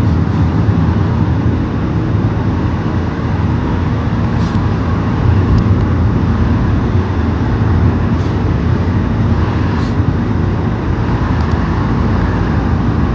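Steady low rumble of a car on the move, engine and road noise heard from inside the vehicle, with a few faint light ticks.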